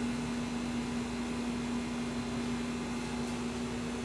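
Room tone: a steady machine hum holding one constant low tone over an even hiss.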